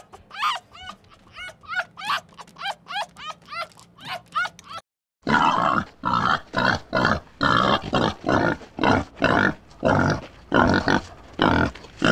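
A rapid series of short, high chirping squeaks for the first few seconds. Then, after a brief gap, a wild boar grunting over and over, about two noisy grunts a second.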